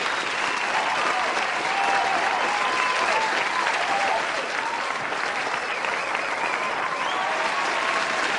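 Large audience applauding steadily, with scattered cheers and whistles rising and falling above the clapping.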